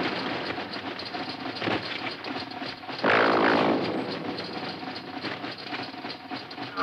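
Sci-fi ray-gun shot sound effects: a loud blast about three seconds in, over a steady crackling noise.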